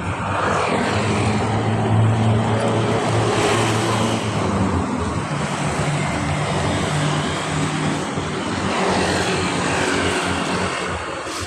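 A loud, steady machine drone with a low hum running under a noisy hiss.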